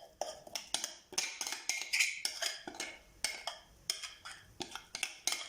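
A kitchen utensil knocking and scraping against a bowl and dish, a run of irregular sharp clicks a few times a second, as thick semolina batter is handled.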